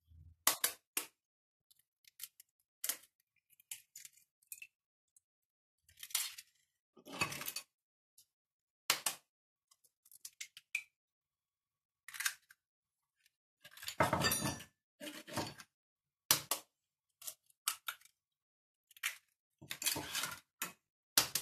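Eggs being cracked one after another on the rim of a glass bowl: sharp taps and shell cracks in short clusters, with quiet gaps between.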